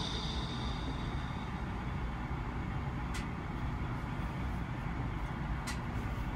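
Ending music fades out within the first second or so, leaving a steady low rumble of background noise. Two sharp clicks come about three and five and a half seconds in.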